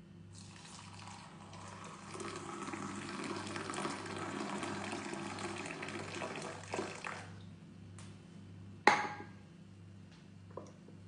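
Water poured in a thin stream into a ceramic mug for about seven seconds, making a cappuccino. A click and then a sharp knock follow about 8 and 9 seconds in.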